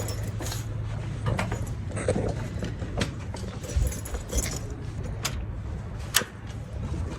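Scattered light clicks and rattles of small objects being handled, over a steady low hum.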